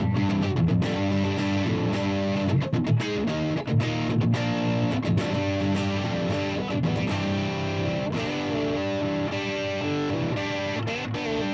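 Gibson Les Paul 1959 Historic reissue electric guitar played through an amp, with picked chords and single notes ringing out and changing every second or so.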